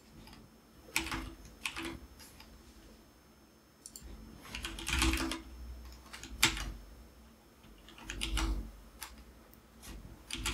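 Computer keyboard keys clicking in short clusters of a few keystrokes, with pauses of a second or two between them.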